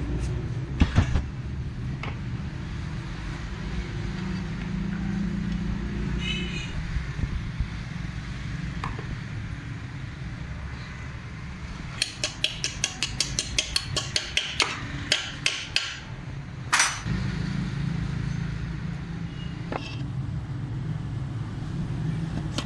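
Steady low traffic rumble. Over it come a couple of sharp knocks, and for a few seconds past the middle a run of quick light taps, about three a second.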